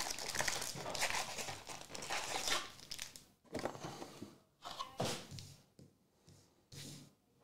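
Foil wrappers of a stack of Topps Marvel Chrome trading-card packs crinkling as the packs are shuffled in the hands. The crinkling is continuous for about three seconds, then comes in short separate rustles.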